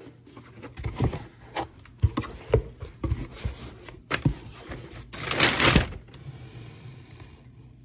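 Cardboard shipping box being handled and opened by hand: a string of knocks and scrapes from the flaps and contents, then a loud rustle lasting under a second about five seconds in.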